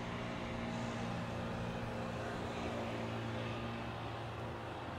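A motor vehicle engine running with a steady low hum.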